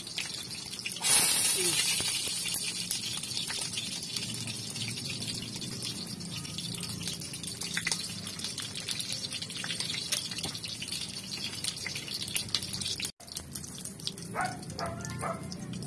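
Meat frying in a wok on a gas stove, a steady sizzling hiss that flares up suddenly and loudly about a second in, then settles back over the next few seconds.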